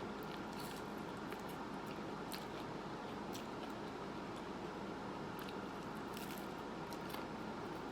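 Close-miked eating: chewing, with scattered short mouth clicks and smacks, a few each second, over a steady background hiss.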